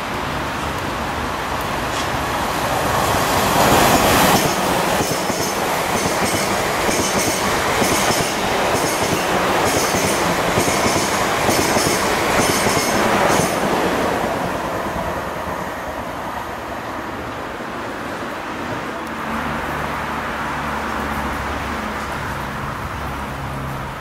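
A Class 37 diesel locomotive hauling two steam locomotives passes at speed. The sound is loudest about four seconds in, with a regular clickety-clack of wheels over rail joints through the middle, fading after about fourteen seconds to a low engine hum near the end.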